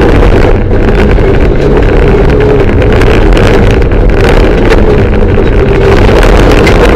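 Mitsubishi Lancer Evolution III rally car's turbocharged four-cylinder engine running hard under load, heard very loud from inside the cabin. The engine note holds fairly steady, with short clattering knocks throughout.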